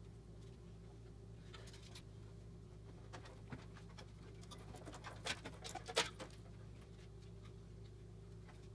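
Light plastic clicks and taps of computer cable connectors being handled and pushed onto a motherboard, a cluster of them in the middle with the sharpest click about six seconds in, over a steady low hum.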